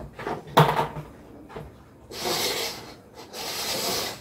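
Red plastic cups being shuffled across a tabletop: two scraping slides of under a second each. They follow a single knock about half a second in.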